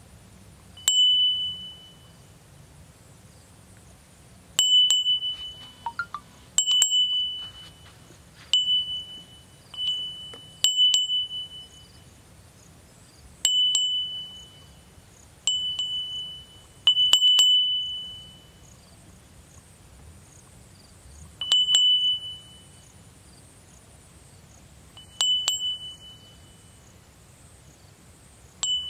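About a dozen high, bell-like dings at uneven intervals, each a sharp strike followed by a clear ring at one pitch that dies away in under a second.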